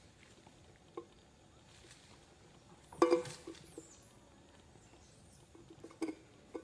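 Empty cylindrical snack canister knocked and bumped on pavement as a monkey handles it: a few hollow knocks, the loudest about three seconds in with a brief ring, and a quick run of smaller knocks near the end.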